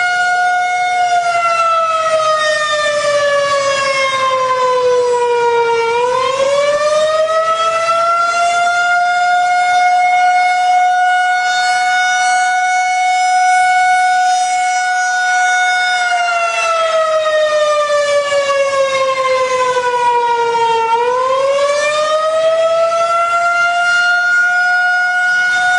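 Air-raid warning siren sounding an alarm. A long, loud steady tone slowly slides down in pitch for about five seconds, swoops back up and holds, and this happens twice.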